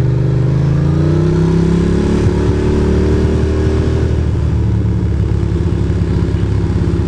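Ducati Monster's L-twin engine pulling the bike along, its pitch rising as it accelerates from about a second in, then dropping to a steady lower note about four seconds in.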